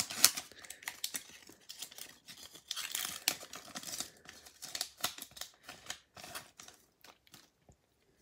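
The shiny wrapper of a Topps baseball card pack crinkling and tearing as it is ripped open by hand, in short crackly bursts that die away near the end.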